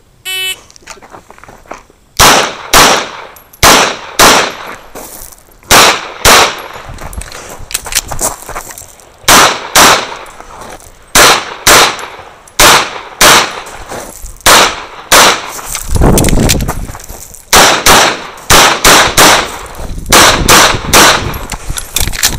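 CZ 75 SP01 AccuShadow pistol fired in rapid competition shooting, starting about two seconds in. The shots come mostly in quick pairs with short gaps between groups.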